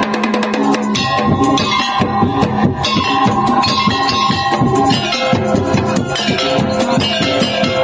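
Madurese tongtong ensemble music: fast, dense beaten percussion with sustained melody notes held over it.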